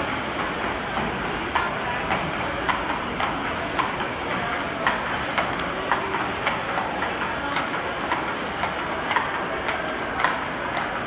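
Nokota horses walking on a bare concrete floor: an even clip-clop of hooves, about two clops a second, over steady background noise.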